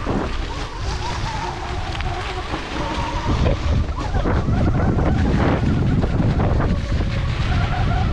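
Heavy wind rumble on the microphone while riding a Sur-Ron electric dirt bike, with a faint wavering whine over it; it grows a little louder about halfway through.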